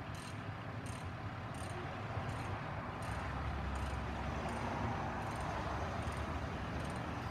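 Heavy truck engine running with a low rumble that grows louder from about two seconds in. Over it, an insect gives a short high chirp about every two-thirds of a second.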